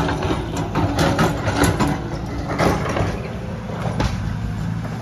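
Excavator's diesel engine running steadily at a low idle, with a few scattered knocks and clanks over it.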